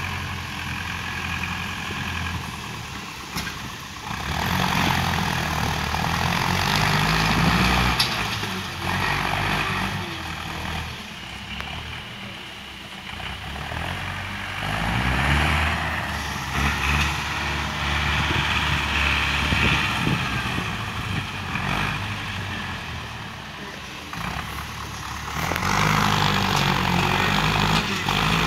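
Diesel farm tractor pulling a disc harrow through tilled soil, its engine working under load and swelling louder several times.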